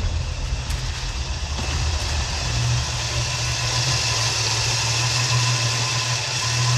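Old sedan's engine idling with a steady low hum, growing stronger about two and a half seconds in.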